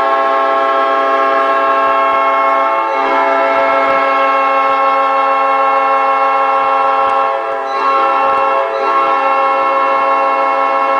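Montreal Canadiens' arena goal horn sounding in one long, loud continuous blast of several steady tones.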